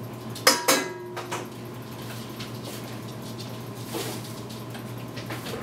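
A few light clicks and clinks of small hard objects being handled on a work surface: two sharp ones about half a second in, one with a brief ringing tone after it, then fainter ones later, over a steady low hum.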